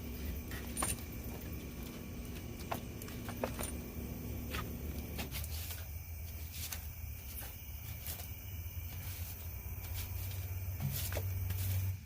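Scattered light clicks and clinks of metal pool-pump parts being handled and fitted together, over a steady low rumble that grows louder in the second half and cuts off suddenly at the end.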